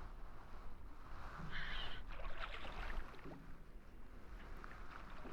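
Wind rumbling on the microphone and water slapping against a small boat's hull, with a short high squeak and a few light clicks about two seconds in.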